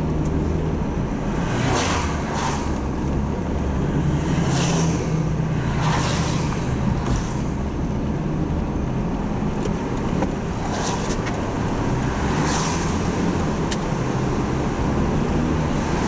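Car engine and tyre noise heard from inside the cabin while driving at steady speed, with several brief whooshes of passing traffic.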